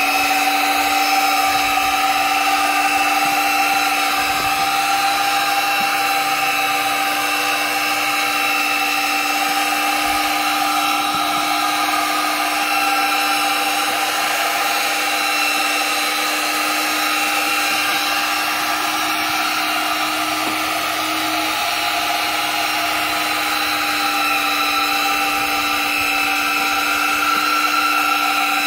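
Corded drill motor driving the Power Krawl stair climber's chain-driven gearbox and tracks, running with a steady whine as the crawler climbs concrete steps.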